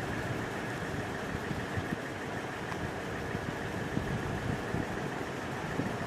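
Pickup truck driving slowly, a steady run of engine and road noise picked up by a microphone mounted on the outside of the truck's body, with a few light thumps.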